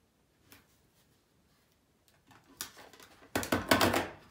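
Paper being handled on a craft table: rustling and crinkling that starts about two and a half seconds in and turns into a loud, fast crackle near the end.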